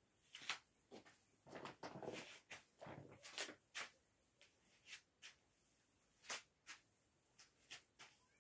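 Faint rustling of a quilt and bedding being handled as a baby wrapped in it is picked up and held, in short scattered rustles with a few soft knocks.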